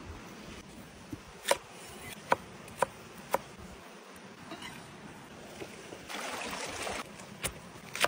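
Kitchen knife chopping raw potato into sticks on a thick wooden cutting board: four sharp chops in quick succession in the first half. Near the end a second of rustling, then a knife chop through a lettuce stem, over the steady rush of a mountain stream.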